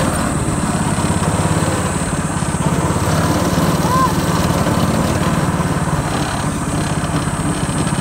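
Small go-kart engine running steadily as the kart drives along the track.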